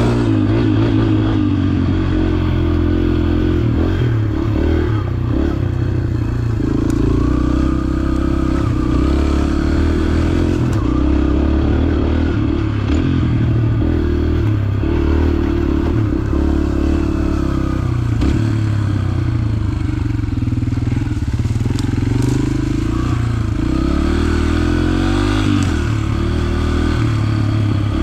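Yamaha TT-R125 trail bike's single-cylinder four-stroke engine running under changing throttle, its pitch rising and falling as it rides.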